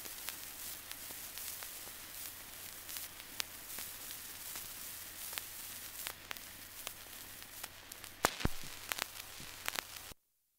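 Surface noise of an old 1914 phonograph recording after the song ends: steady hiss and a low hum with scattered crackles and clicks, two of them louder near the end, then the noise cuts off suddenly to silence.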